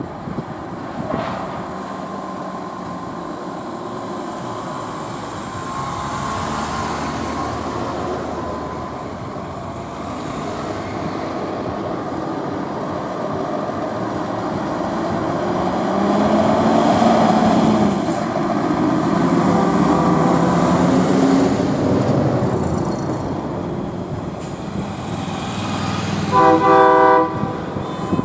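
Emergency and service vehicles driving off slowly one after another, engines running steadily and swelling in the middle. Near the end a loud horn blast lasts about a second.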